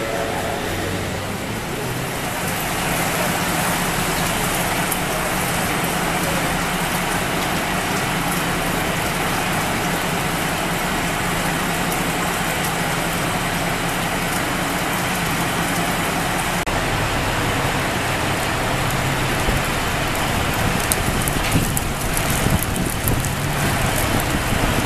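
Steady vehicle noise: a low engine hum under an even hiss, changing about sixteen seconds in.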